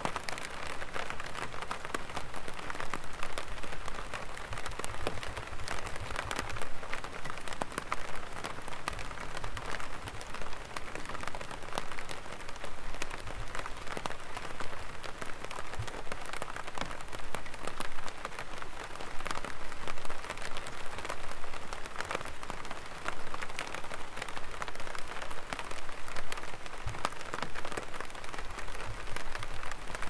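Light rain falling on an umbrella: a steady, dense run of small drop ticks.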